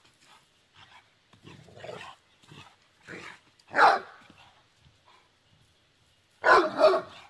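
Great Dane barking in play: a few quieter woofs, then a loud bark just before four seconds in and two loud barks in quick succession near the end.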